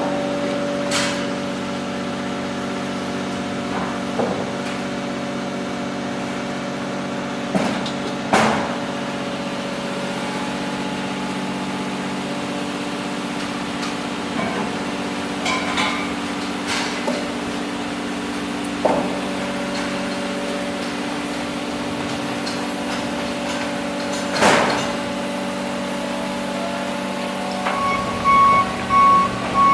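Steady idling engine hum, with a few sharp clicks and knocks now and then. Near the end a regular high-pitched beeping starts, like a vehicle's reversing alarm.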